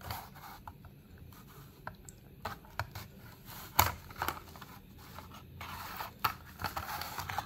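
Plastic blister pack being pried and peeled open from its cardboard backing card by hand: scattered scratching, crinkling and tearing, with a sharper click about four seconds in.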